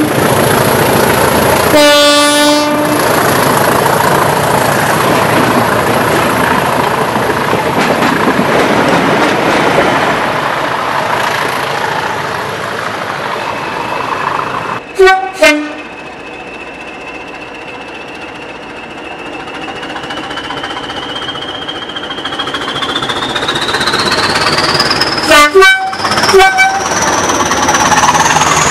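A British diesel locomotive and its train of flat freight wagons passing close by, with a short horn blast about two seconds in; the wagon rumble fades away over the next ten seconds. Then a second diesel locomotive sounds two short horn blasts and grows louder as it approaches, with a whine climbing steadily in pitch, and gives three more short horn blasts near the end.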